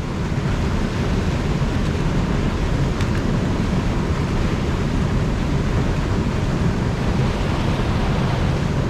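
Steady rush of water pouring over an overflow weir.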